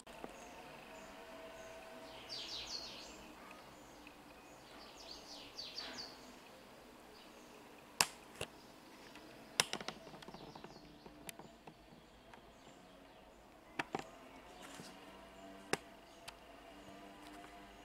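Packaging being handled: two short bursts of rustling, then several sharp knocks and clicks.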